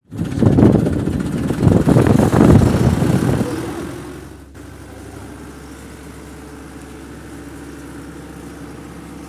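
Engine-like running sound from a handmade mini MF 385 tractor model: loud and uneven for the first three to four seconds, then settling to a steady, quieter hum after about four and a half seconds.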